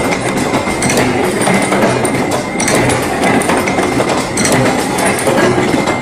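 Automatic chain-link forming machine running: a steady mechanical clatter with a sharper knock about every one to two seconds.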